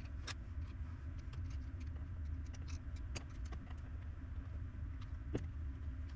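A steady low hum with scattered light clicks and taps, the sharpest about three seconds in and near the end.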